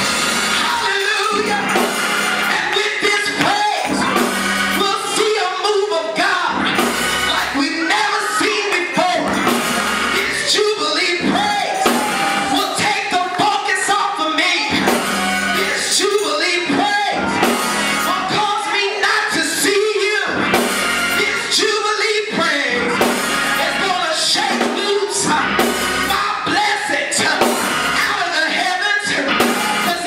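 Live gospel church music: singing through the microphone over a drum kit with frequent cymbal hits and organ.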